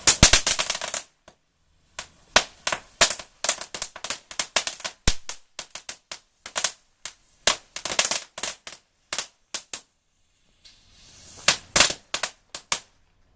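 Homemade crackling string going off: its glued-on crackling balls burst in sharp, rapid cracks. A dense run of cracks opens, scattered irregular cracks follow for several seconds, then after a pause a last cluster crackles near the end.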